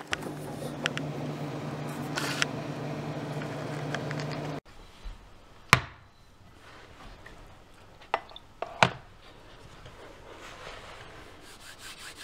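Refrigerator humming steadily for about four and a half seconds, then cutting off abruptly. After that come a few sharp knocks as a ceramic mug and a plastic container are set down on a placemat on a countertop.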